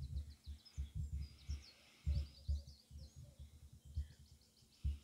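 Small birds singing in runs of quick high chirps, over irregular low thumps and rumbles of air buffeting the microphone, which are the loudest sound.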